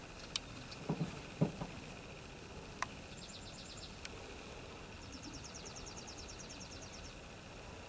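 Hens in a wooden nesting box making a couple of soft, low clucks about a second in, with a few light clicks. In the second half a high, rapid trill of about eight pulses a second sounds twice, the second time for about two seconds.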